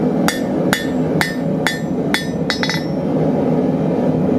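Blacksmith's hand hammer striking a hot half-inch square steel bar on the anvil, smoothing and squaring a drawn-out taper. About seven ringing blows come roughly half a second apart, the last few closer together, stopping a little before three seconds in.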